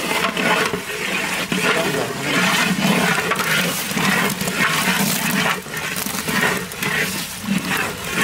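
A long-handled ladle stirring a watery curry in a large metal pot, with liquid sloshing and splashing as chunks of potato drop in, and frequent short knocks and scrapes throughout.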